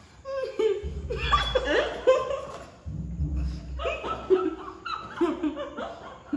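Women laughing and chuckling in several short bouts, with a low rumble underneath twice, about one and three seconds in.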